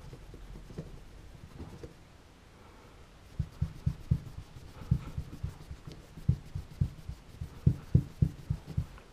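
A cloth rag rubbed hard over a metal part of a disassembled pistol, making a run of dull low thumps, several a second, that start about three seconds in after fainter rubbing.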